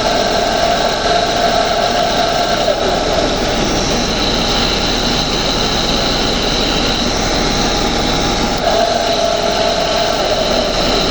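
Air conditioner evaporator fans running, loud and steady, one of them noisy: a whining tone fades out about three seconds in and comes back near the end, over a constant airy rush and a thin high whine.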